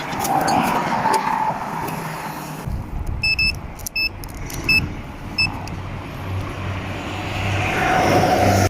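Road traffic going by, a steady rush that swells near the end as a vehicle passes close. Midway there are four short, high electronic beeps, evenly spaced about two-thirds of a second apart.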